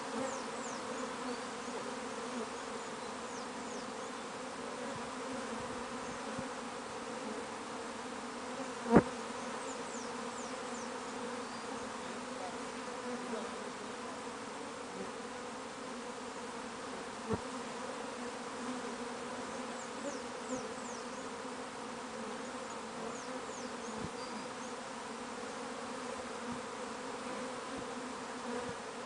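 A large swarm of honeybees buzzing steadily as it settles into a wooden hive box: an even, low hum of thousands of wingbeats. A single sharp click stands out about nine seconds in, with a fainter one later.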